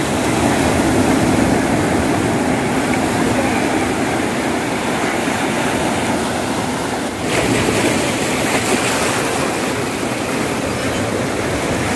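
Steady rushing of sea waves and wind, with a brief dip about seven seconds in.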